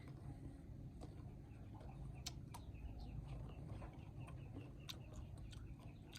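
Faint bird calls repeated about three times a second, with a few sharp clicks over a low steady rumble.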